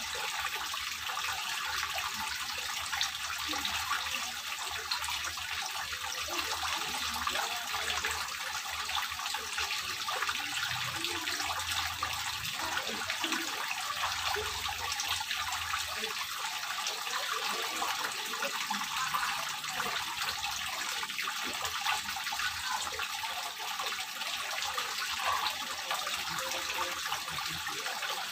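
Stone water-wall fountain of a small garden pond, water running down the ridged panel and spilling from spouts into the pool below, a steady splashing trickle.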